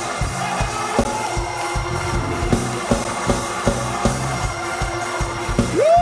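Praise-break music: organ chords held over a fast, steady drum-kit beat.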